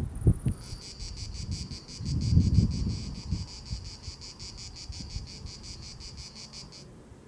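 Cricket chirping in an even, rapid pulse of about six chirps a second, stopping shortly before the end. A higher, steady insect trill is heard only in the first second, and wind rumbles on the microphone underneath.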